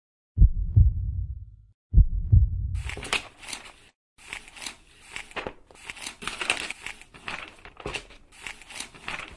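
Intro sound effects: two deep booming hits about a second and a half apart, each dying away, followed by a fast run of crackling, papery rustles and swishes.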